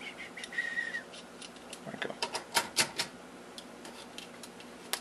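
Small metal clicks and taps from a dial indicator, fitted with a steel bushing and knurled screw, being handled and set against the lathe carriage's depth stop. A cluster of sharper knocks comes about two to three seconds in, with a brief faint squeak shortly before.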